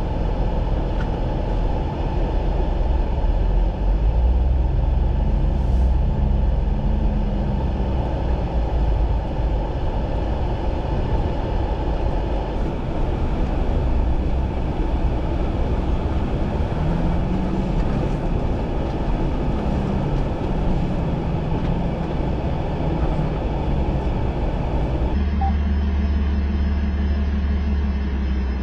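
Off-road Jeep engine running at low speed while crawling, its pitch rising and falling with the throttle over a steady low rumble. Near the end the sound cuts abruptly to a steadier engine note.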